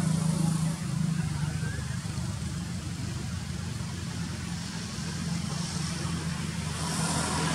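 Steady low engine hum, dipping a little after the first second and growing again near the end.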